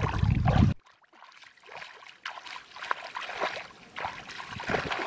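Muddy water splashing and sloshing during hand fishing in a shallow pond, cutting off abruptly under a second in; after that only faint, scattered splashes and knocks.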